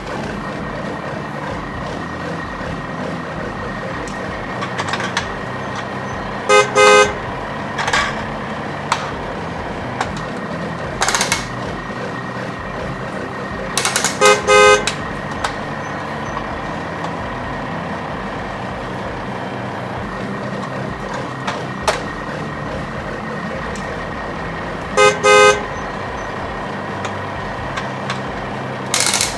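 Electronic horn of a toy mini car sounding short double beeps, three times, with a couple of other brief sound bursts in between, over a steady background.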